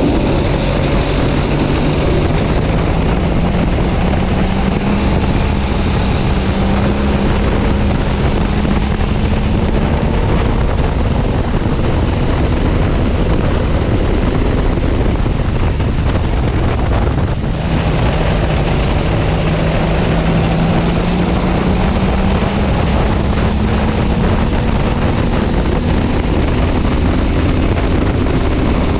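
Go-kart engine running at racing speed, heard onboard: its pitch climbs steadily as the kart accelerates, drops briefly a little past halfway as the throttle is lifted for a corner, then climbs again. Wind noise on the microphone runs under it.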